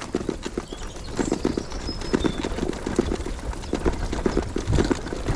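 Brompton folding bicycle rattling and knocking over a rough, bumpy dirt path: quick irregular jolts of the frame and the loaded front bag.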